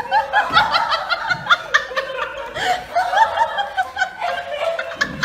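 Several people laughing in quick, high-pitched peals that overlap one another.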